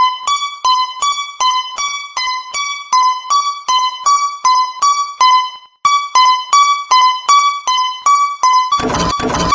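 Japanese railroad crossing alarm bell ringing: evenly repeated bell-like strikes, roughly three a second, alternating between two close pitches. It cuts out briefly about five and a half seconds in, then resumes, and a short noisy burst sounds over it near the end.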